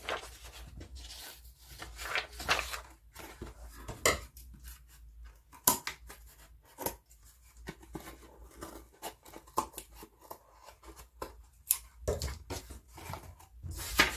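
Sheets of A4 paper being handled and flapped on a wooden tabletop, rustling, with a few sharp clicks scattered through.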